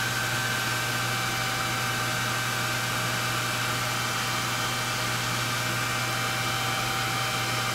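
Hand-held hair dryer running steadily: a constant rush of air over a steady motor hum, blowing on a model that has just been painted.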